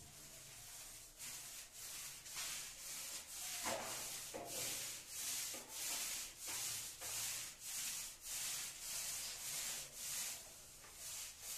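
Paint roller rolling wet paint onto a wall in repeated up-and-down strokes: a rhythmic hiss that settles to about two strokes a second.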